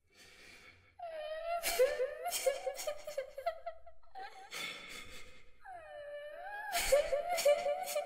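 A little girl's voice crying and weeping. Long high wavering wails break into quick sobbing catches, with a shaky gasping in-breath between them about four seconds in.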